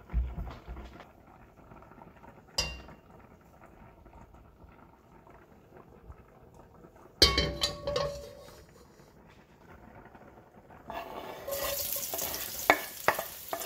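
Sliced red onion and ginger dropped from a wooden cutting board into hot oil in a wok, starting a steady sizzle near the end, with a few sharp taps of the board against the wok. Before that, a few knocks of cookware, the loudest a clattering knock with a brief ring about halfway in.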